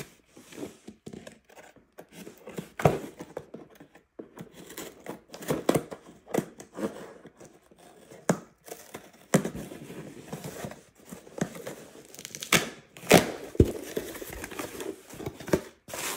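Cardboard shipping box being torn open and handled: irregular tearing and rustling, with several sharp, louder rips and knocks, and near the end the crinkle of plastic air-pillow packing.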